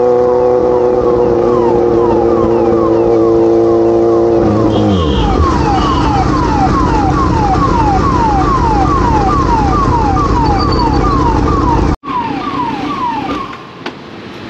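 Police siren wailing in quick repeated falling sweeps, about two or three a second. Beneath it runs a Kawasaki Z900's four-cylinder engine with a full-system exhaust, which holds a steady pitch and then falls about four and a half seconds in as the bike slows. The siren stops shortly after a sudden cut near the end.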